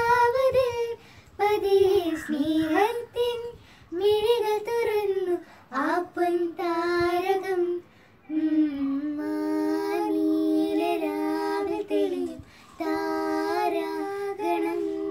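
A child singing a melody unaccompanied, in phrases separated by short breaks, with held notes in the second half.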